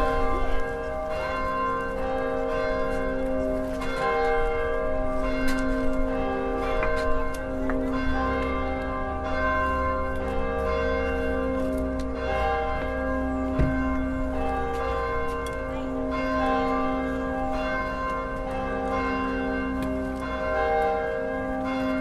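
Several large swinging church bells pealing together at close range in the belfry, each struck again and again by its clapper so their tones overlap and keep ringing.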